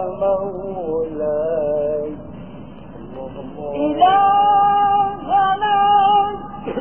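A voice singing long, held notes that bend and waver in pitch: one phrase at the start, then a quieter stretch, then a louder phrase from about four seconds in.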